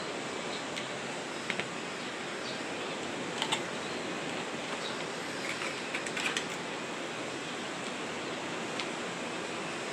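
Steady hiss-like background noise with a handful of short, light clicks and taps scattered through it, a couple of them in quick pairs.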